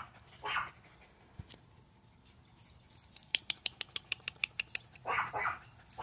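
Dog barking: one bark about half a second in and two quick barks near the end. Between them comes a rapid run of about a dozen sharp clicks.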